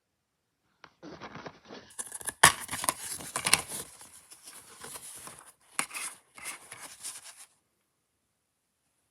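Plastic DVD case being handled: scraping and rustling with several sharp clicks, the loudest about two and a half seconds in.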